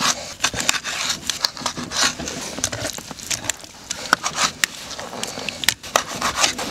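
Kitchen knife skinning and slicing a raw pike fillet on a wooden cutting board: scraping strokes through flesh and skin, with many irregular clicks and knocks of the blade on the board.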